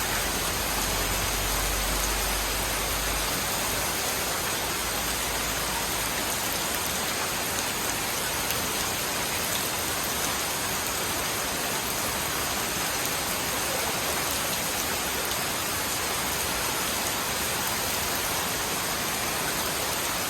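Steady rain falling and pattering on surfaces, with a low rumble underneath that dies away about three seconds in.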